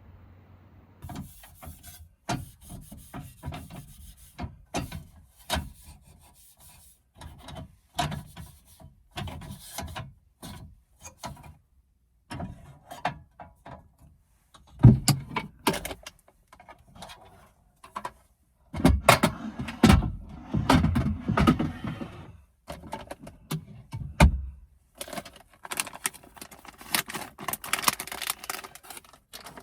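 Objects being handled at close range: an uneven run of clicks, knocks and rubbing, with a few heavier thuds about halfway through and a stretch of dense rustling near the end.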